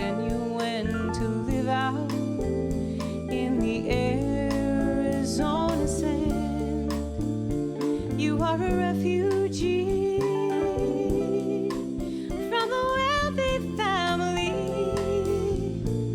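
Live band playing on past the last sung line: keyboards, guitar, bass and drums, with regular drum hits over held bass notes.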